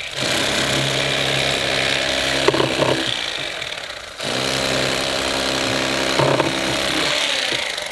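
Electric fillet knife running, its motor buzzing steadily as the blades cut the skin and red meat off a catfish fillet. It stops briefly about four seconds in, then starts again.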